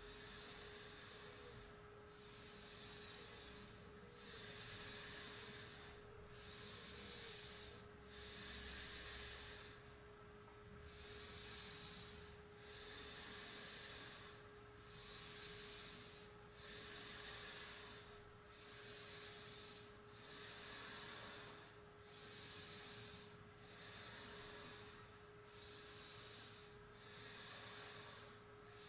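Faint, slow, controlled yogic breathing: a soft hissing breath rises and falls about every two seconds, inhale and exhale in turn, through a round of pranayama.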